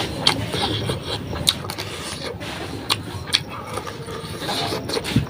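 Someone eating: chewing and handling the food, with a rubbing, scraping noise throughout and a few sharp, wet smacking clicks.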